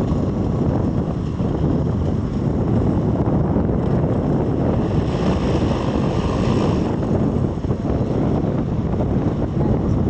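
Strong wind buffeting the microphone in a steady low rumble, with surf washing behind it.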